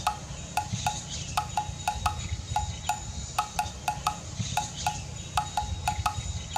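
Light, ringing clinks like small chimes, several a second at uneven intervals, over a steady low rumble.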